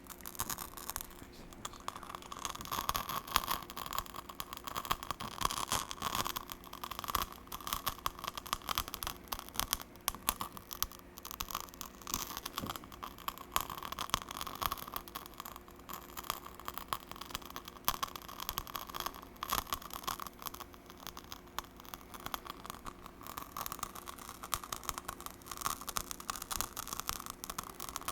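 Candle burning with a dense, irregular crackle of small pops and snaps, over a faint steady hum.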